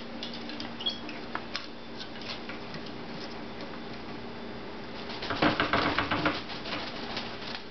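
African grey parrot's beak and claws clicking and tapping on the rungs of a wooden ladder. About five seconds in comes a louder flurry lasting about a second as the parrot flaps its wings while clambering on the ladder.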